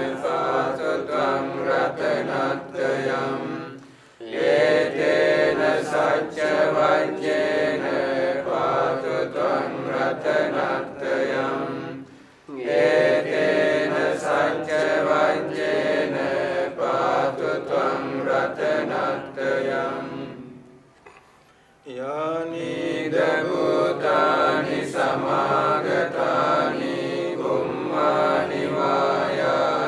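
A group of Sri Lankan Buddhist monks chanting Pali paritta (blessing verses) together in a steady recitation, pausing briefly for breath three times.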